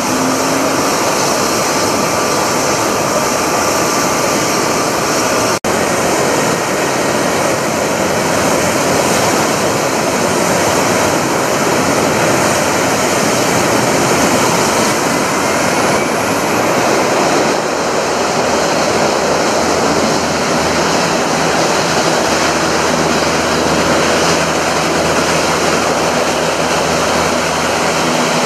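LCAC hovercraft's gas turbine engines, lift fans and ducted propellers running with a loud, steady roar. The sound cuts out for an instant about six seconds in.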